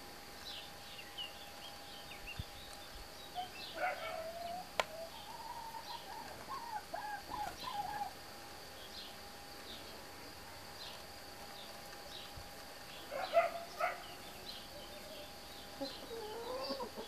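Chickens clucking and calling at intervals in a farmyard, with short high chirps scattered between the calls. A single sharp click comes about five seconds in.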